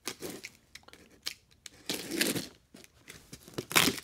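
Cardboard shipping box being opened by hand: packing tape tearing and cardboard scraping and rustling in irregular strokes, with two louder rips, one about two seconds in and one near the end.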